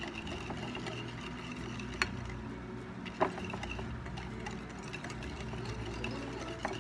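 Wire whisk beating instant coffee, sugar and hot water by hand on a ceramic plate: rapid clicking and scraping of the metal wires against the plate, with two sharper knocks about two and three seconds in. The mixture is still runny, at an early stage of being whipped into dalgona foam.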